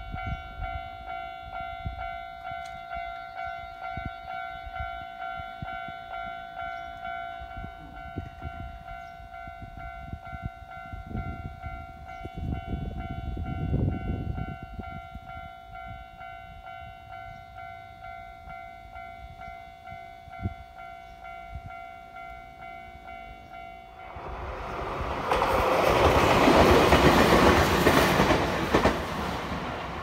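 A Japanese railway level-crossing warning bell rings steadily with its repeating electronic tone. About six seconds before the end the bell cuts off and a train rushes over the crossing, a loud noise of wheels on rail that fades out near the end.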